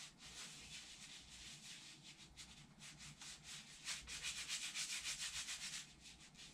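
Gloved hands rubbing and smoothing over a hardening cast sock on a foot, in quick repeated strokes that grow louder for a couple of seconds past the middle.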